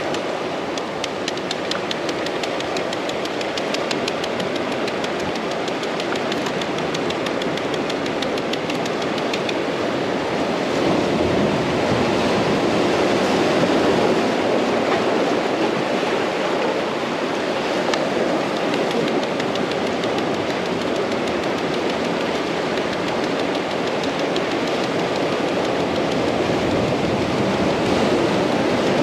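Quick, regular knife taps on a cutting board as an onion is chopped, strongest through the first third, over a steady wash of surf.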